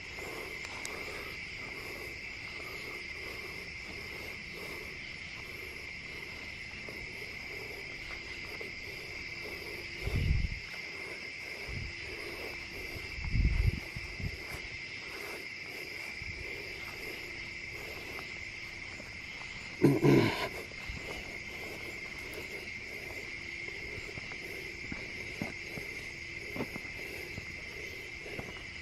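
Steady night chorus of crickets, a constant high trill. There are a few low bumps around ten and thirteen seconds in, and a short, louder noise about twenty seconds in.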